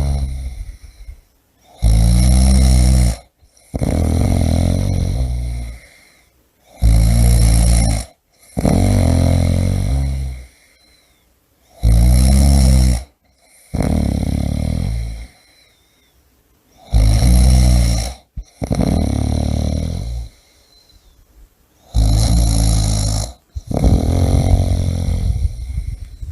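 A person snoring in a steady rhythm: pairs of rasping snores, a short loud one followed by a longer one that fades away, about every five seconds, five times over.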